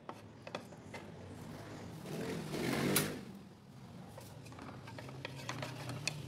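Wooden spatula scraping and tapping against a nonstick frying pan as butter melts in it, making a run of light clicks and knocks. A louder swelling scrape builds about two seconds in and ends in one sharp knock.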